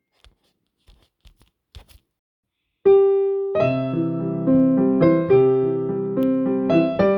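A few faint clicks in near silence, then piano music starts about three seconds in: one held note, then a gentle melody over chords.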